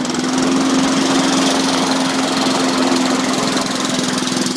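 Honda engine of a Champion Premier lawn mower running steadily at raised throttle, a constant even hum.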